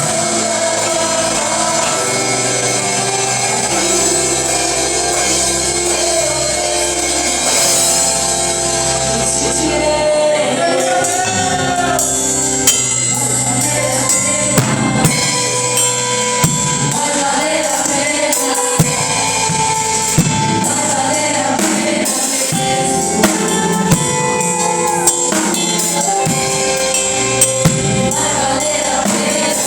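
Gospel worship music with held keyboard chords and singing. From about 13 seconds in, sharp percussion hits come in at irregular intervals.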